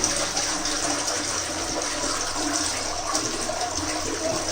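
Steady rush of running water in a small bathroom, even in level throughout.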